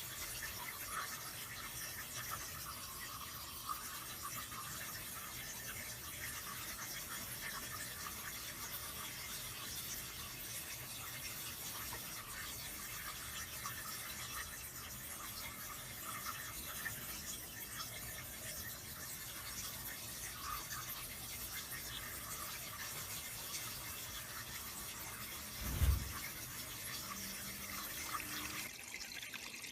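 Water trickling steadily at a bird pond, with one brief low thump near the end.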